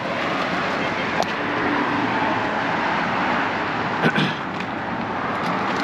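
Steady rush of road traffic, swelling slightly in the middle, with a couple of brief clicks from handling.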